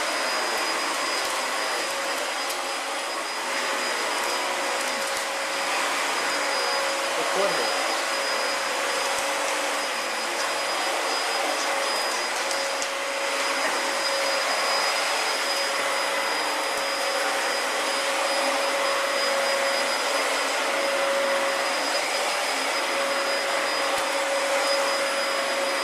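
Bagless upright vacuum cleaner running at full speed: a steady motor whine over a broad rush of air.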